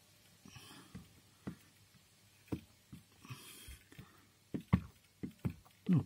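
Soldering iron tip pressing, tapping and scraping against a plastic bumper as a plastic filler strip is melted into it: scattered light clicks and knocks, coming closer together near the end.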